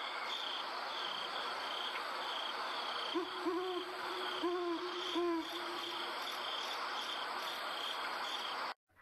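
Night ambience sound effect: an owl hoots four times, from about three to five and a half seconds in, over a steady hiss and insects chirping in an even rhythm. It cuts off abruptly near the end.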